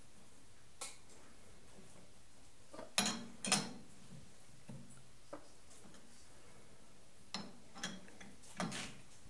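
Metal clicks and knocks from an Emco lathe's four-jaw chuck being worked by hand: the chuck key is fitted and turned in the jaw screws and the chuck is rotated to true the part. About eight separate knocks, the loudest two close together about three seconds in.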